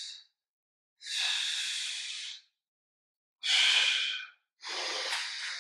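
A man breathing audibly in and out, paced controlled breaths during a Pilates core exercise: three breaths, the first about a second and a half long, the later two shorter.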